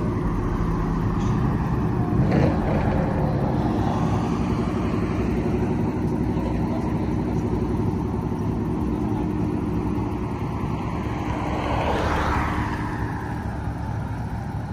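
Steady rumble of idling vehicle engines and road traffic, with a car passing close by about twelve seconds in.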